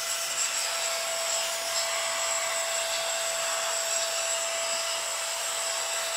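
Rechargeable motorized camera air blower running steadily: a small fan motor's even whine over a hiss of blown air, holding one pitch throughout.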